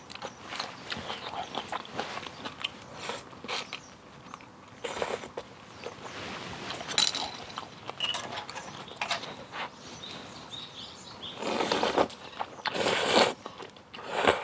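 Eating noodle soup up close: long noisy slurps of clam kalguksu noodles, one about 5 s in and a longer, louder one near the end, with chewing and small sharp clicks of utensils in between.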